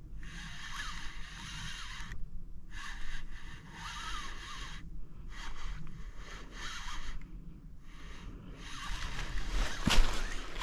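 Shimano Sustain 4000FI spinning reel cranked in short bursts of one to two seconds with pauses between, a stop-and-go retrieve of a jig along the river bottom, with one sharp click near the end.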